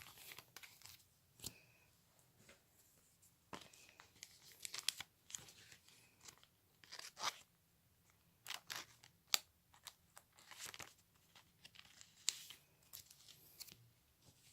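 Foil booster-pack wrapper and trading cards being handled: a faint run of short, irregular crinkling and rustling sounds.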